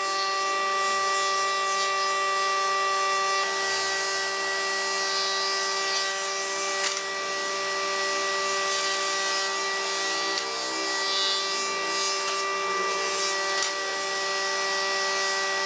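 Combination woodworking machine's thickness planer running, its cutterhead steadily shaving a pallet-wood board as it feeds through. It makes a constant whine over a dense cutting hiss.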